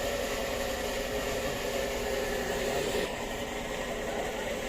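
Steady mechanical hum with a faint whine in it; its higher hiss drops away about three seconds in.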